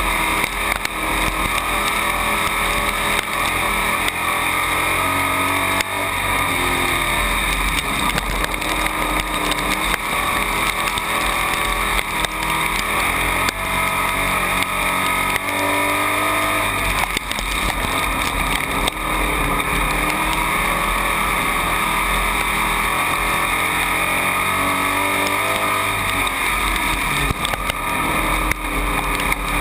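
Dirt-track race car's engine at racing speed, heard from inside the cockpit. Its revs rise and fall repeatedly as the car goes around the track, under a steady loud rush of wind and track noise.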